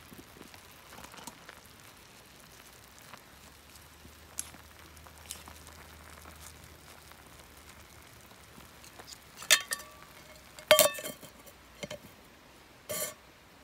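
A metal camp pot lid clanking several times against the pot as it is set on, each knock ringing briefly, in the second half. Before that, faint clicks and crackles under the pot.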